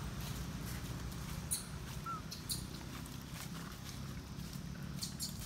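Forest ambience: a steady low rumble with a few sharp crackles, about a second apart, and one short faint chirp about two seconds in.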